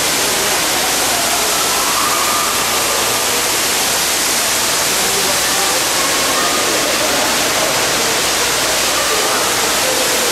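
Steady rushing of falling water from an artificial rock waterfall, with faint voices of a crowd underneath.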